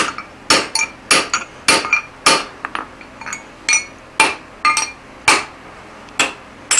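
Hand hammer blows on a drift set through the eye of a red-hot steel hammer head lying on the anvil, straightening the head: about two strikes a second at an uneven pace, each with a short metallic ring, with a few lighter taps between them.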